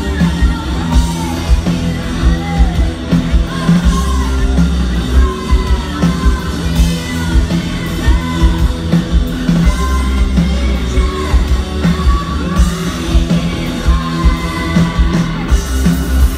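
Live rock band playing: a woman singing over electric guitars, bass and drums, loud through a festival PA.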